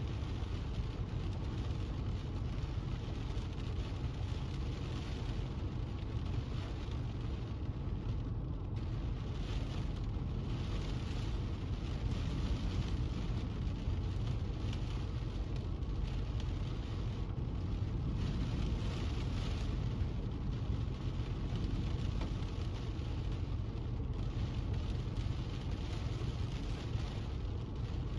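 Steady low rumble of a car on the road, with a hiss of rain on the car that swells and fades now and then.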